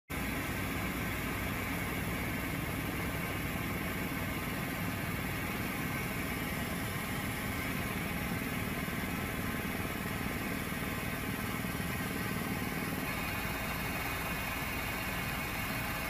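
Helicopter engine and rotor noise heard from inside the cabin, loud and steady.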